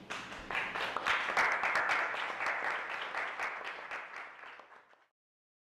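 Audience applauding with dense, irregular clapping that fades out about four seconds in and stops.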